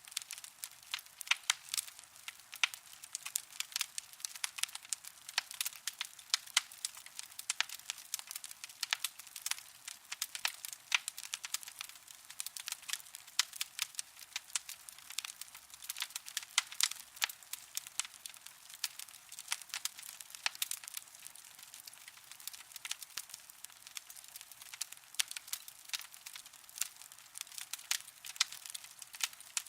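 Coals crackling: a steady stream of sharp, irregular snaps and pops, several a second, thin and bright with nothing deep underneath.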